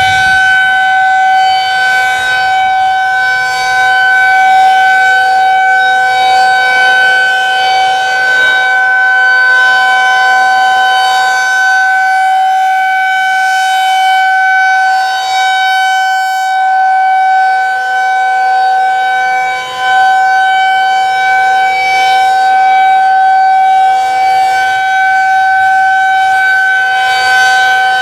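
Federal Signal 2001 rotating tornado siren sounding a steady alert tone, holding one pitch, its brightness swelling every few seconds, with a brief dip in loudness about two-thirds of the way through.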